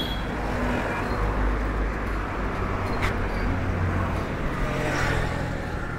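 Passing road traffic: a low engine rumble with tyre noise, swelling as vehicles go by. A single sharp click comes about three seconds in.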